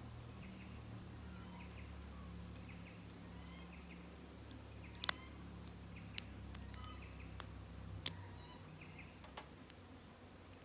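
Faint bird chirps over a low steady hum that stops about eight seconds in, with a handful of sharp clicks from lock picks and a tension tool working in an SFIC core.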